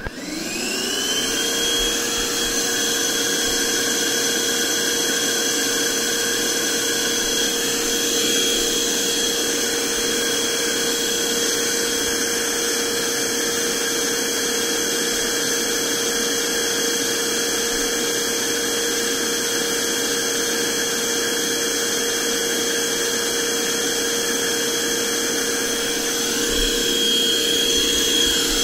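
NOVETE VT-DH003 cordless handheld vacuum cleaner switched on: its motor spins up with a rising whine over about the first second, then runs steadily with a high whine over the rush of air.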